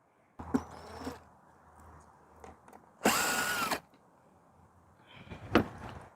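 Power drill driving a screw on the generator's plastic cover, spinning for under a second: it speeds up, holds, then winds down. Clicks and knocks of handling the cover come before and after.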